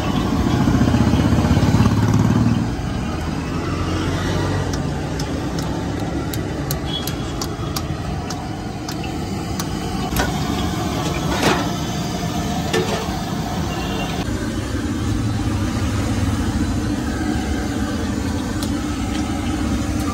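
Road traffic running by with a steady engine rumble, loudest in the first couple of seconds. From about five to ten seconds in there is a run of light sharp clicks from a knife tapping the steel counter as it cuts dough, then one louder click a little later.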